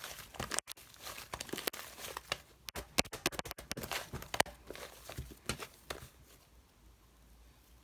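Irregular crinkling, tapping and scratching of something being handled, thinning out near the end.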